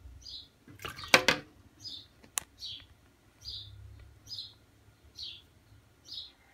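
A ladle clinking against the cooking pot as vegetable soup is scooped out: a sharp double clink about a second in and another a little later. A bird chirps in short repeated notes about once a second.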